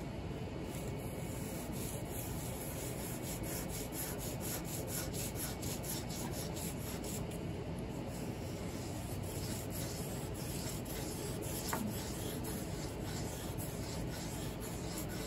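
220-grit sandpaper on a hand-held block rubbed hard back and forth over the shellac finish of a piano case, in quick, even strokes. The paper is levelling the French-polished shellac and knocking down its high spots between coats.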